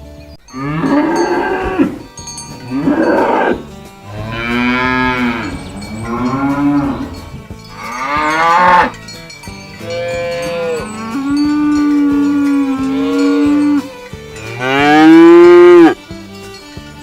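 Cattle mooing, about eight long calls one after another with short breaks between. Each call bends up and then down in pitch, and the last one, near the end, is the loudest.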